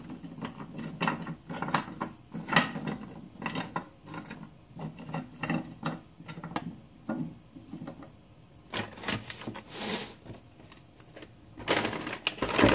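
Frozen dumplings and a utensil clicking and knocking irregularly in a preheated frying pan, with two short bursts of hissing about nine seconds in and near the end.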